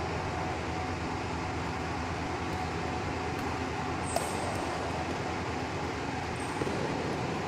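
Steady rumbling noise of an indoor badminton hall, with one sharp racket-on-shuttlecock hit about four seconds in and a softer knock a couple of seconds later. Brief high squeaks of shoes on the court come with them.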